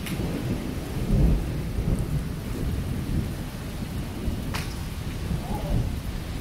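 Low rumble and steady hiss of wind and rain over the microphone, with a sharp click of a golf club striking a ball about four and a half seconds in.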